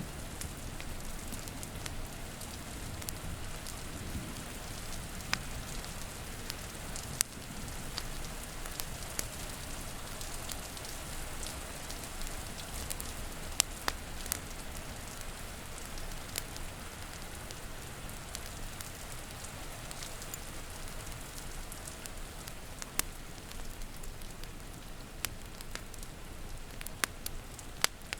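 Steady rain falling, with sharp, irregular pops and crackles from a burning wood fire scattered throughout.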